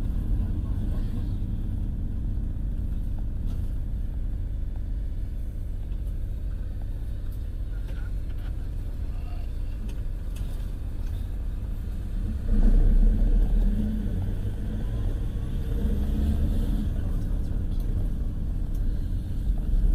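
Car driving, a steady low rumble of engine and road noise, with a louder surge of rumble for a second or so about twelve seconds in.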